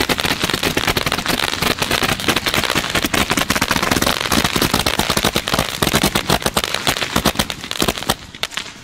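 A tube-type 'machine gun' firework firing a rapid, continuous stream of small bangs and crackles, many shots a second. It tapers off about eight seconds in.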